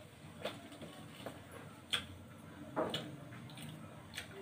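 Faint mouth sounds of someone chewing a bite of paratha: a few scattered small clicks and smacks.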